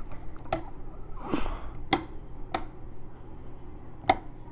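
Four sharp clicks spaced unevenly over a few seconds, the last one the loudest, with a brief rustle between the first and second.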